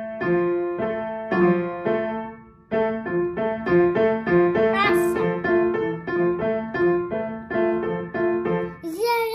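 Upright piano played by a small child picking out a simple tune one note at a time in the middle register, repeating a few notes. There is a short pause about two seconds in, then the notes come a little quicker.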